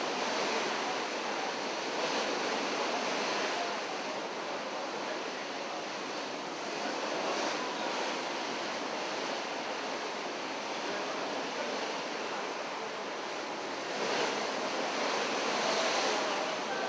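Steady rush of open-sea waves and wind, heard from a ferry under way, swelling gently a few times.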